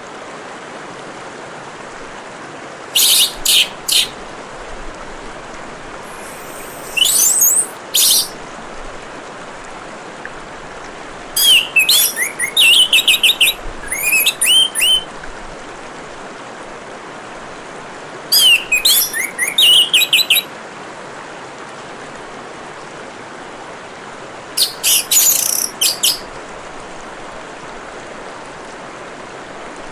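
Orange-headed thrush singing in five separate bouts of rapid, high twittering phrases, a few seconds apart, over a steady trickle of running water.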